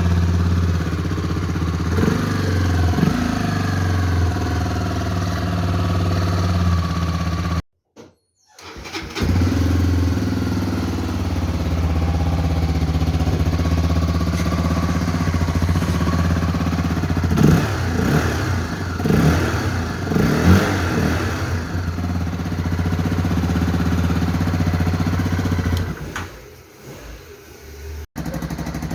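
Honda CB300R single-cylinder motorcycle engine idling through its stock exhaust, revved several times in quick succession about two-thirds of the way through. The sound cuts out briefly about 8 seconds in and fades near the end.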